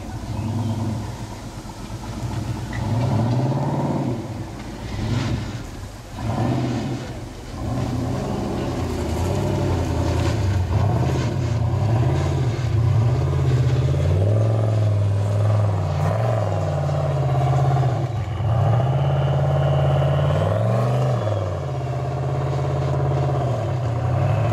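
Formula Offroad buggy's engine revving in repeated bursts as it climbs steep sand, its pitch rising and falling with the throttle. The engine dips briefly a couple of times in the first several seconds, then stays loud with constant up-and-down revving.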